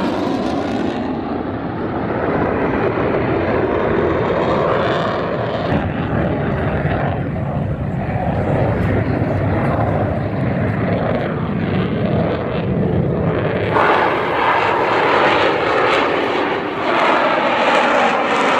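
Military jet aircraft flying over at an air show, a steady loud engine roar that grows brighter and harsher about fourteen seconds in.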